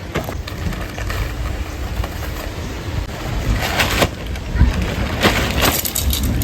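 Wind buffeting the microphone with a low rumble, broken by a few brief louder noises, two of them near the middle and towards the end.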